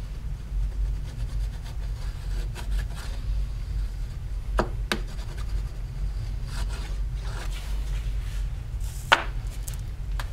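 Hand tool rubbing and scraping across a copper printmaking plate in irregular strokes, with a few sharper scrapes about halfway through and near the end, over a steady low hum.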